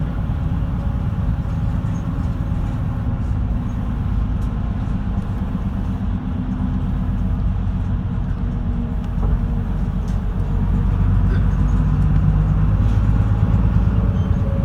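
Route bus engine running with road rumble, heard inside the passenger cabin; it grows louder about ten seconds in.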